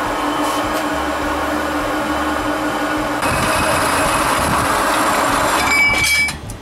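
Metal-cutting band saw running, its blade cutting through a rusty steel block held in the vise jaws. About three seconds in the sound grows louder and brighter. Shortly before the end it stops suddenly with a brief high ring.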